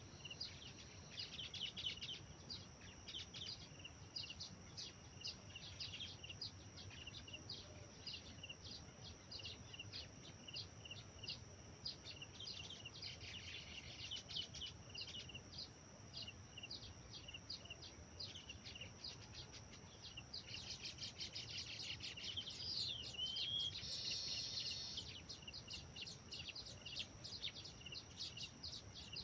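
Small wild birds chirping and calling, busiest about a second in, near the middle and again around three-quarters of the way through, over a steady high-pitched hum and an even, rapid ticking.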